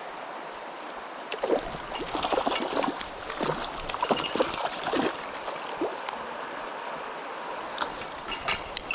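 Mountain stream flowing steadily, with irregular knocks and clicks heard over it, thickest from about a second and a half to six seconds in and again near the end.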